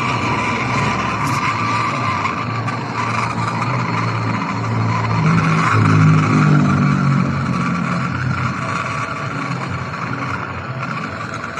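Gas brazing torch burning with a steady hiss and low rumble while a copper tube is brazed to aluminium tubing, swelling a little about halfway through.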